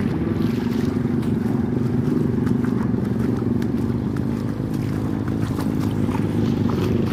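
A motor vehicle's engine running steadily through floodwater, with water splashing and sloshing in scattered short bursts over the drone.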